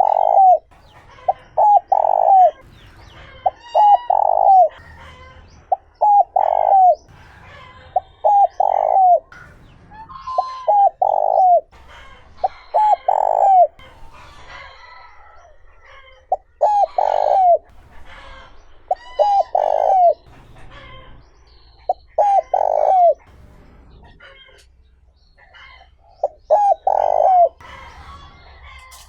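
Spotted dove cooing over and over, the male's territorial call. Each phrase is two or three short notes and then a longer coo, about every two seconds with a few longer pauses. Small birds chirp faintly behind it.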